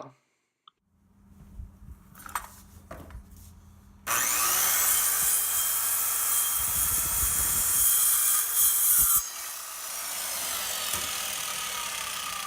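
Porter Cable PCE300 7-1/4-inch circular saw cutting through wood. The loud cut starts abruptly about four seconds in and ends sharply about five seconds later, after a quieter stretch of the motor running. The blade then winds down with a slowly falling pitch, coasting because the saw has no electric brake.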